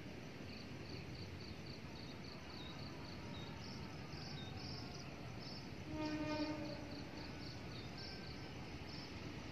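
Distant locomotive horn of an approaching train, one short steady blast about six seconds in, over a faint background haze and a regular series of high chirps, about three a second.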